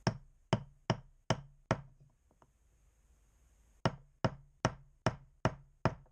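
A flat block of wood knocking repeatedly on a Yanmar 1GM10 raw-water pump assembly, driving the shaft down through its bearing and seals. There are five sharp knocks at about two and a half a second, a pause of about two seconds, then six more at the same pace.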